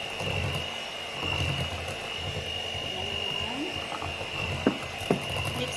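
Electrolux electric hand mixer running with a steady whine, its beaters churning carrot cake batter in a glass bowl. Two sharp knocks near the end.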